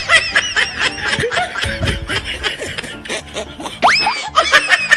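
High-pitched snickering laughter, quick repeated giggles, over background music, with a quick upward whistle-like glide about four seconds in.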